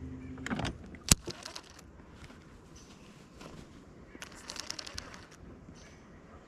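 A boat's electric trolling motor humming steadily, then shutting off about half a second in. A sharp knock follows about a second in, and a short run of quick light ticks comes a few seconds later.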